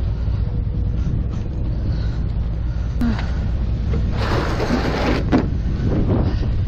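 Wind buffeting the microphone, a steady low rumble, with a brief rustling noise about four seconds in that lasts about a second.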